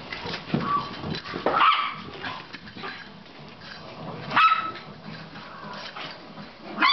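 Small dogs, a papillon and a Maltese, play-fighting, with a few sharp play barks a couple of seconds apart, the loudest about halfway through.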